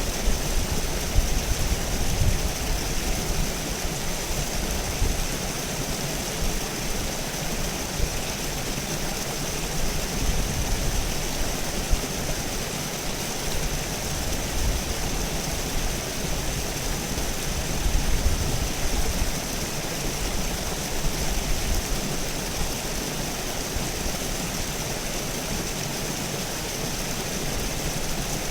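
River water rushing steadily over rocks, an even hiss with a low, uneven rumble underneath.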